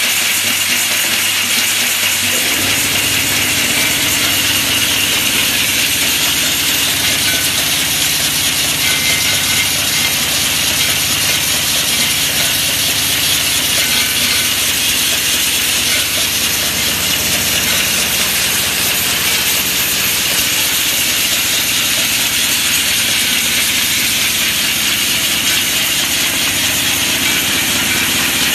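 Plastic bottle-cap slitting and folding machine running steadily: a continuous high hiss and whir from the rotary turret as it slits and folds the caps' tamper rings. A low hum joins about two and a half seconds in.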